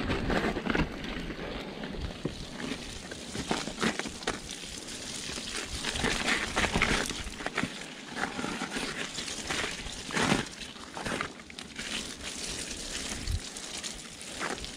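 Mountain bike riding a dirt singletrack with patches of snow: tyre noise over dirt and snow with frequent clicks, rattles and scrapes from the bike and trailside brush, loudest about six to seven seconds in and again at about ten seconds.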